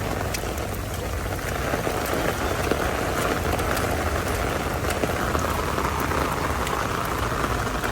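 Heavy rain falling steadily: a dense hiss with individual drops ticking through it.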